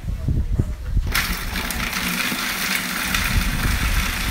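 Food processor switched on about a second in, its motor running steadily and loudly as the blade chops almonds, mushrooms and red onion into a coarse burger mix.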